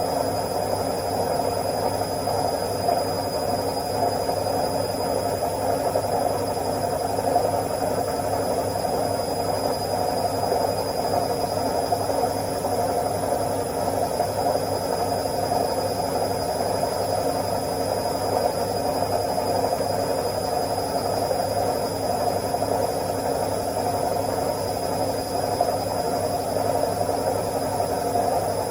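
Washing machine on its spin cycle: the drum spinning at speed with a steady whirring hum and a thin high whine above it, unchanging throughout.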